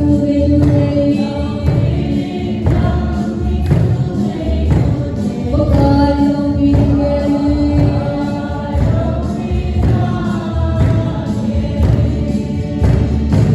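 Music: a choir singing held notes over a steady low beat.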